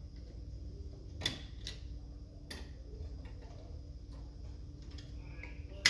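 A few separate sharp clicks, then a louder knock near the end, over a low steady hum.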